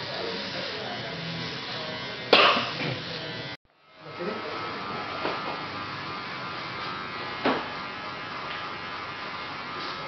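Barber's cordless electric trimmer buzzing steadily as it cuts hair at the neckline and around the ear. A sharp click a little over two seconds in is the loudest moment, with a fainter click later, and the sound cuts out for a moment near the middle.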